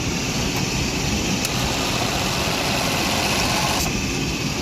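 A 2002 Chevy Astro van's 4.3-litre V6 idling steadily with the air conditioning running. The AC compressor is cycling on and off, which the owner hopes does not mean the compressor needs replacing.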